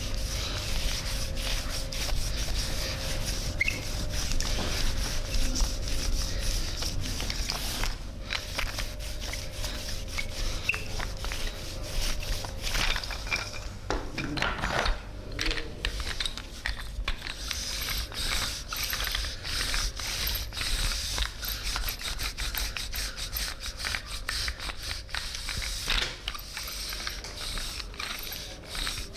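Close-miked massage: hands rubbing against skin, a dense, continuous stream of small clicks and scratchy rubbing. A faint steady hum runs under the first half.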